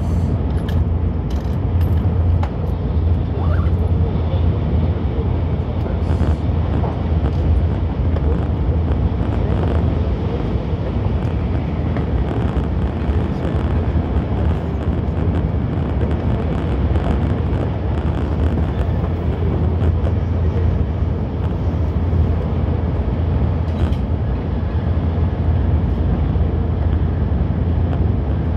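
Steady running noise inside a Nozomi Shinkansen carriage at speed: a deep, even rumble from the wheels and the air around the train, with a few faint ticks.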